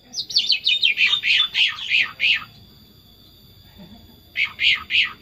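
Sooty-headed bulbul (kutilang) singing: a fast run of about a dozen loud, sharply falling whistled notes over two seconds, then after a pause a slower series of the same notes, about three a second, starting near the end.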